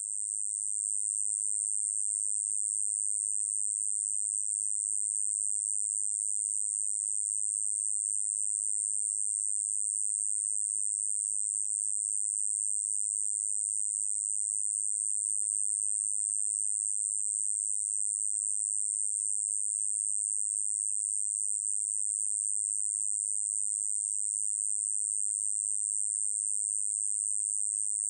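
Katydid 꼬마여치베짱이 (a small conehead katydid) singing: one continuous, high-pitched buzz, steady and unbroken.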